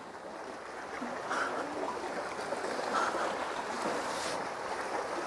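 Steady wash of sea water and waves against the concrete tetrapod blocks, with a few faint brief rustles.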